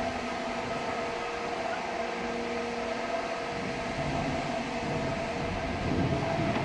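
Machinery running: a steady mechanical hum over constant noise, with a few held tones.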